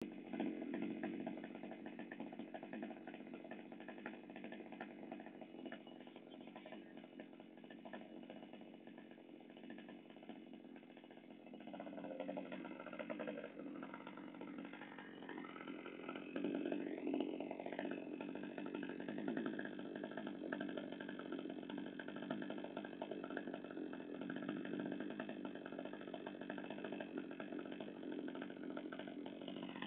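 Sadko GCS-560E 3.4 hp two-stroke chainsaw engine running steadily at idle during its break-in. Its pitch rises about twelve seconds in, and it gets louder again at around sixteen to eighteen seconds.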